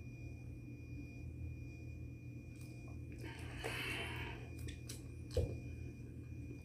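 Plastic water bottle being handled after a drink: a short rush of noise about three seconds in, a few small clicks as the cap is screwed on, then a thump as the bottle is set down, the loudest sound. A steady low hum runs underneath.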